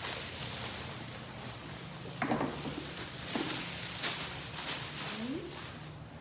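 Plastic wrapping rustling and crinkling as it is handled and pulled off, with short scrapes and clicks.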